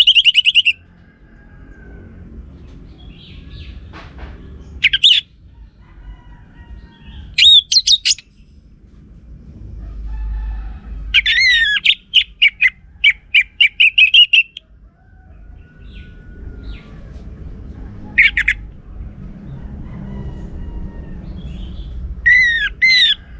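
Orange-headed thrush song: loud, sweeping whistled phrases separated by pauses of a few seconds, with one longer, rapid string of notes in the middle, over a low background rumble.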